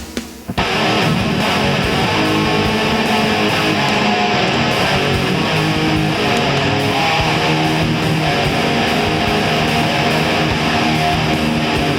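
Heavy nu-metal instrumental passage led by electric guitar, starting up loud about half a second in after a brief drop.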